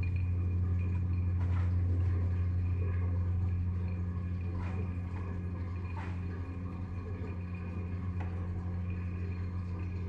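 A low, steady hum with a fainter steady tone above it, easing off slightly as it goes, with a few faint scattered clicks: a drone in a piece of experimental improvised music.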